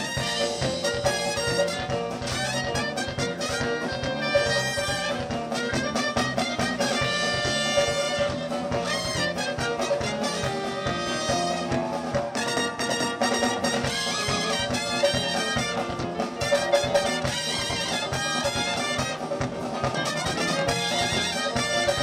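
Live band playing an instrumental passage: trumpet and saxophone lines over drum kit and electric bass, with a steady beat.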